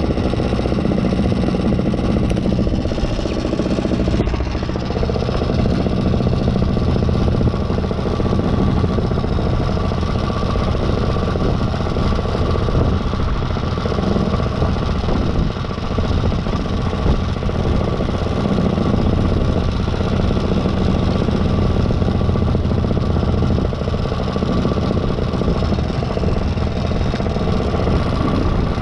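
Paramotor engine idling steadily on the pilot's back, its propeller turning, with a low, even engine drone and no change in throttle.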